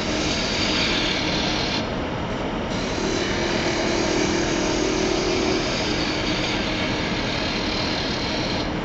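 Wood lathe running while a spindle gouge cuts the thin stem of a cherry goblet: a steady scraping hiss of the cut, which drops away and returns as the tool comes off and back onto the wood. A humming tone rises for a couple of seconds in the middle.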